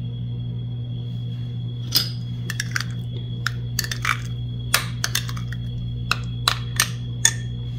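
Light, irregular clicks and clinks of a cut-glass bowl being handled and turned in the hand, a dozen or so sharp ones starting about two seconds in, over a steady low hum.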